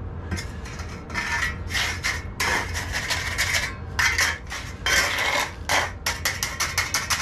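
A steel trowel scraping and smoothing wet concrete around a sump pump basin, stroke after stroke, the strokes coming quicker and shorter near the end. A steady low hum runs underneath.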